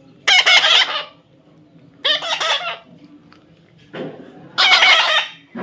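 Parrot giving three short, harsh calls about two seconds apart.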